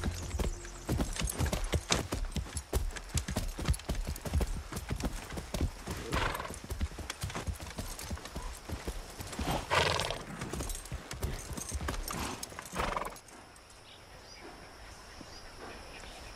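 Hoofbeats of two horses walking, an irregular clip-clop, with three short horse calls among them. The hoofbeats stop about thirteen seconds in, leaving a quieter steady ambience.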